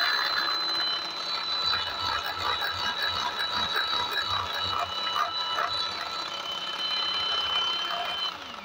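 Electric hand mixer with twin wire beaters whipping coffee, sugar and hot water in a glass bowl for dalgona coffee: a steady, high-pitched motor whine. Near the end it is switched off and the pitch falls as the motor winds down.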